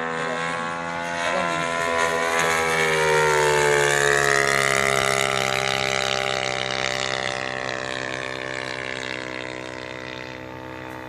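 Engine and propeller of a radio-controlled P-40 Warhawk model plane flying past overhead. The steady engine note grows louder to a peak about four seconds in, its pitch bending slightly, then fades as the plane moves away.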